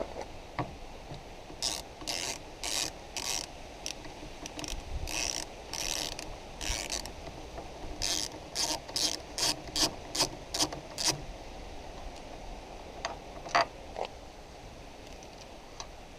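Ratchet with a T40 Torx bit clicking in a run of short, sharp clicks as it undoes a wing-mirror mounting bolt inside a car door. The clicks come quicker about eight seconds in and stop about eleven seconds in, with a couple of single clicks after.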